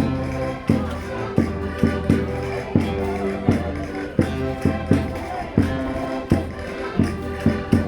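Concertinas (diatonic button accordions) playing a Minho folk dance tune in sustained reedy chords, with a sharp percussive beat about twice a second.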